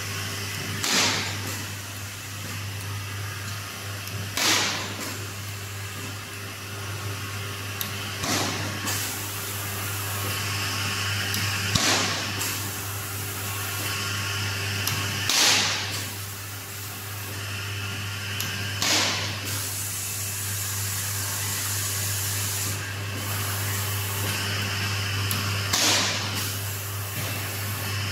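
CNC capacitor-discharge stud welding machine running: a steady electrical hum and machine noise, broken about every three and a half seconds by a short sharp crack with a hiss as the weld guns fire, about eight times.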